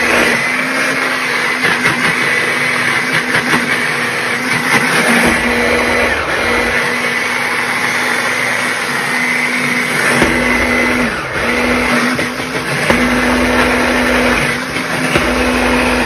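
Electric hand blender running on its mini chopper bowl, puréeing cooked broccoli and red pepper into a paste. It makes a steady motor hum with a high whine, with a brief dip about ten to eleven seconds in.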